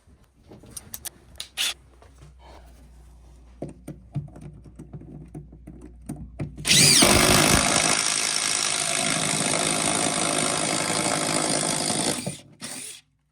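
Cordless impact driver running under load while making a hole, one loud, steady run of about five and a half seconds starting just before halfway, then a brief second burst near the end. Before it, quieter clicks and handling knocks.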